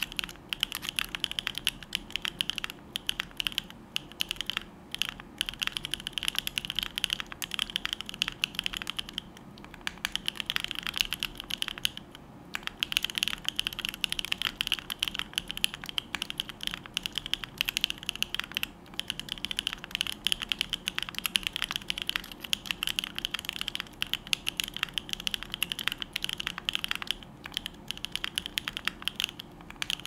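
Continuous fast typing on a Neo65 mechanical keyboard with hand-lubed Bsun Aniya switches, a carbon-fibre plate, mid foam in the case and GMK Grand Prix keycaps: a dense, rapid run of keystroke clacks, with short pauses about nine and twelve seconds in.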